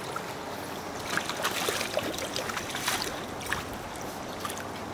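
Shallow river water running and lapping steadily, with scattered small splashes and trickles as a landing net is moved about in it.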